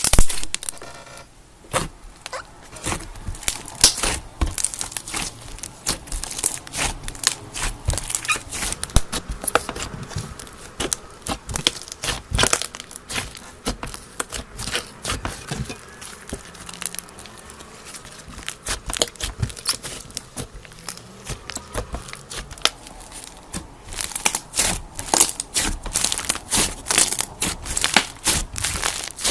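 Slime being squeezed, stretched and poked by hand, giving a run of quick crackling pops and clicks that grow denser and louder near the end.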